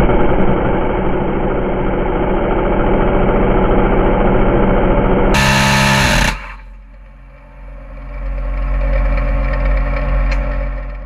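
Naval deck gun firing, loud and heavy for the first five seconds or so, then giving way to a steady low rumble that swells and fades near the end.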